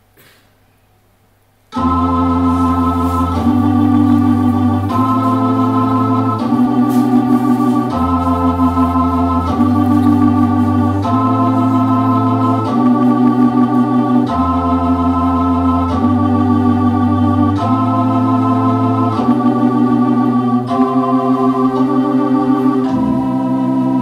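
Organ music starting suddenly about two seconds in: a slow run of held chords, each changing to the next about every second and a half.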